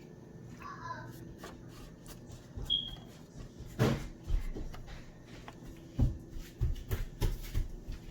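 Kitchen handling noises: a handful of separate knocks and clunks of cookware and utensils being handled, the sharpest about four and six seconds in.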